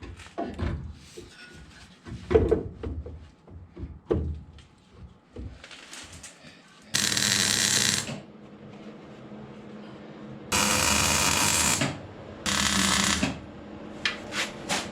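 MIG welder laying short plug welds through drilled spot-weld holes in van body panels: three separate bursts of hiss, each about a second long, the second the longest. Scattered knocks and clicks of panel and tool handling come before them.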